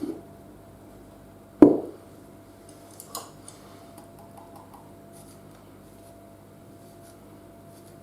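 Kitchen bowl and utensil: one sharp knock about a second and a half in, with a smaller one at the start, then a few faint clinks, as beaten egg whites are added to cake batter in a mixing bowl.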